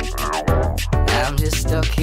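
Hip hop backing music with a heavy bass and a regular beat.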